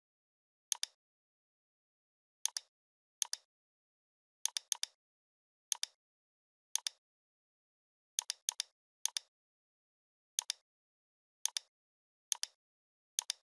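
Computer mouse left-button clicks, about fourteen of them at irregular intervals. Each is a quick double tick as the button is pressed and released, and a few come in quick succession.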